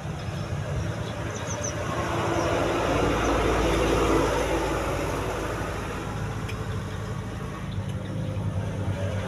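An engine running steadily, growing louder about two seconds in and easing off again after about six seconds.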